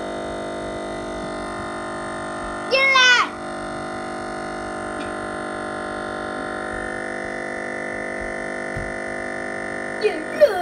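Desktop PC speakers droning a frozen, endlessly repeating scrap of the MIDI music as a steady buzzing chord: the audio stuck in a loop because Windows has crashed to a blue screen. About three seconds in, a short loud cry falling in pitch sounds over it, and a few briefer voice sounds come near the end.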